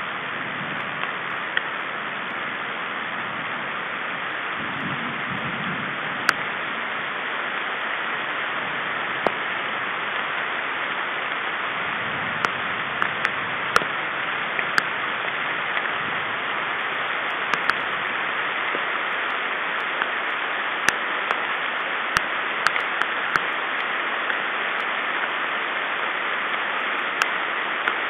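Steady rain hiss, with scattered sharp taps of drops striking close to the microphone.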